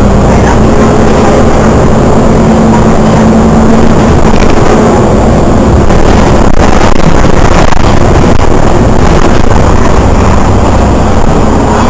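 Steady engine and road noise from inside a moving city bus, with a low engine hum underneath.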